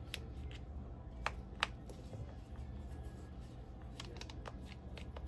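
Scattered light clicks and ticks of a screwdriver backing out the screws in the plastic base of a Snap-On 14.4 V battery pack, with the case being handled, over a low steady hum. The sharpest clicks come about a second in and again near four seconds.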